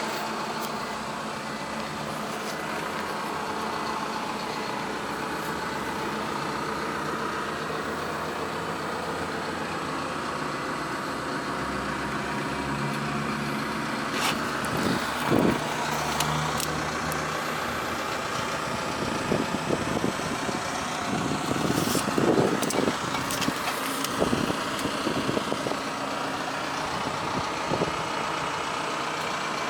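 Isuzu Elf truck's diesel engine idling steadily, with a few short knocks and rustles over it partway through.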